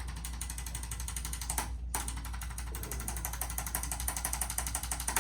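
Handheld motorized chiropractic percussion instrument running against the patient's back muscles, a fast even rattle of taps that stops briefly about two seconds in and again at the end.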